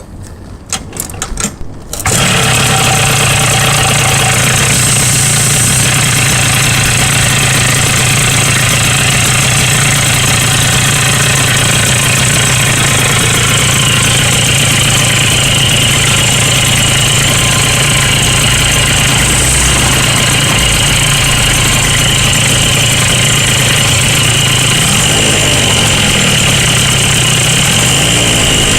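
Yamaha Grand Axis two-stroke scooter engine catching after a couple of seconds of stuttering cranking, then running steadily at idle with an abnormal noise that the owner puts down to the crankshaft bearing.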